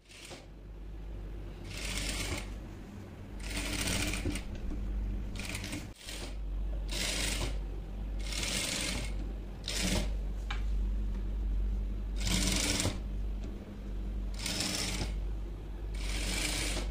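JACK industrial sewing machine stitching in about ten short runs of a second or less, stopping and starting as the fabric is guided, over a steady low hum.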